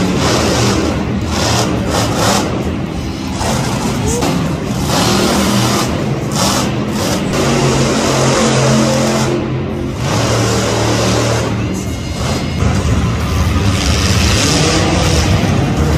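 Monster truck engine revving hard as the truck spins in the dirt, heard under music.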